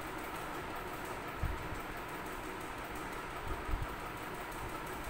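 Chalk writing on a blackboard over a steady whirring background noise, with two soft low thumps about a second and a half in and near the end.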